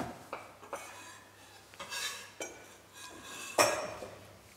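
Kitchen utensils clinking and scraping against stainless steel bowls and pans, in scattered knocks, the loudest about three and a half seconds in.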